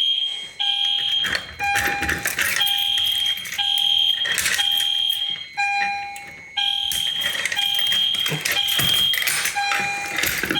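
EST Genesis fire alarm horn sounding: an electronic alarm tone with a high and a low pitch together, broken by short gaps about every second, with scattered knocks and clatter over it.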